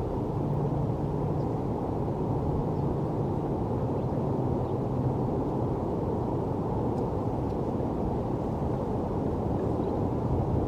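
Steady low rumble of distant city traffic with a low, even hum through it, and a few faint, short high chirps.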